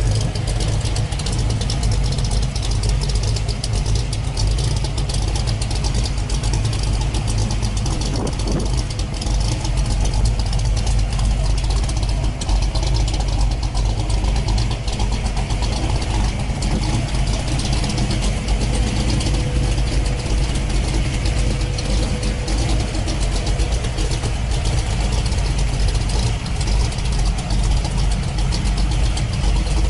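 A car engine idling steadily at an even pitch.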